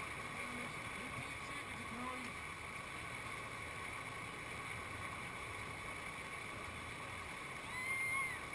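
Steady rush of whitewater pouring over a rock ledge into a river play wave, with a brief high-pitched shout near the end.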